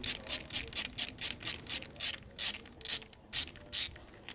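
Hand ratchet clicking in quick even strokes, about four a second, undoing the bolts on a front differential casing; the clicking stops shortly before the end.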